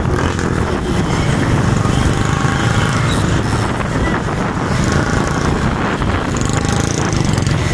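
Several small motorcycles running steadily at road speed, a dense engine and road rumble, heard from the back of one of them.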